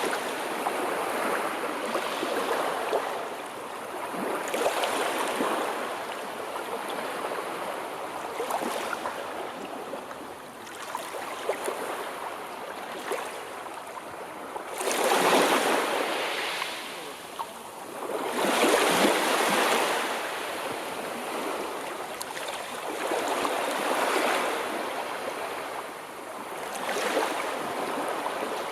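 Sea surf: waves breaking and washing on the shore, the rush swelling and falling away every few seconds, loudest in two big swells about halfway through.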